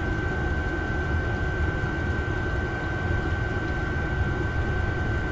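Chinese 8 kW diesel air heater running steadily at full power, a constant low rumble with a steady high-pitched whine over it.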